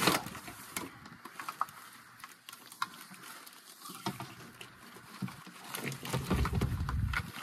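Engine wiring harness in corrugated plastic loom being handled and pulled into place: scattered plastic clicks, ticks and rustling, with a louder click at the start and a low rumble near the end.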